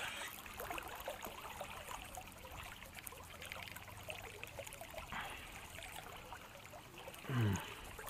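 River current flowing and trickling close by, with scattered small splashes and clicks. Near the end there is a short, louder sound that falls in pitch.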